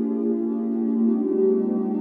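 Ambient background music of soft, sustained held notes.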